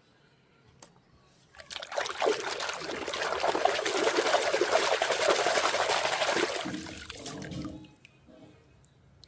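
Water running and splashing for about six seconds as toys are washed. It starts about a second and a half in and tapers off near the end.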